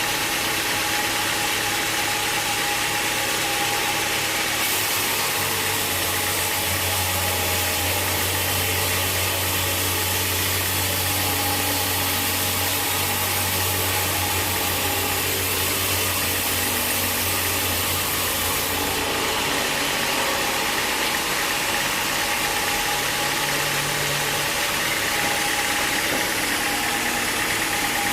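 Sawmill machinery running steadily, with a steady whine over a broad hiss. From about five to nineteen seconds in, a deeper hum and a brighter hiss join in, then drop away again.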